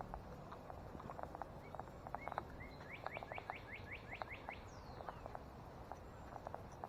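Footsteps on a woodland trail, with a songbird singing a rapid run of about nine short rising notes in the middle, followed by one falling whistle.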